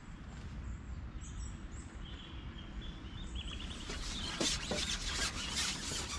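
Small birds chirping faintly over a low wind rumble. About four seconds in, a run of rustling and scraping starts as a long fishing pole is picked up and shipped out.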